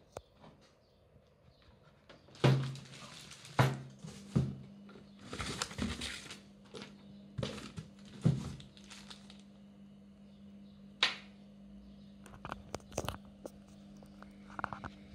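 Cardboard box and plastic wrapping being handled: several bursts of rustling and crinkling with a few knocks, the loudest a couple of seconds in.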